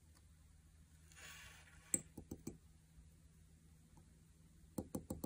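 Fine steel tweezers ticking against a porcelain spotting plate as a tiny gold bead is set into it: a few sharp clicks about two seconds in and another few near the end, over a faint steady hum.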